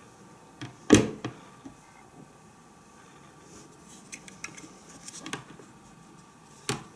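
Knocks and clicks from handling the Braun JB 3060 blender's glass jug and its blade assembly, with the motor off. One loud knock with a short ring comes about a second in, a run of light clicks follows a few seconds later, and another knock comes near the end.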